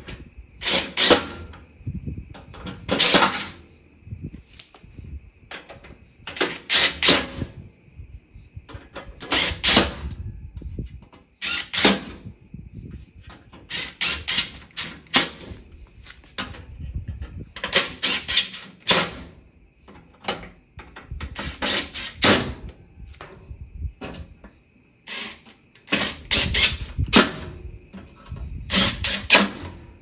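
DeWalt cordless screwdriver driving screws into a gas range's cooktop in short bursts, each a quick run of clicks, about every two to four seconds. The clicking is the torque clutch slipping as each screw seats.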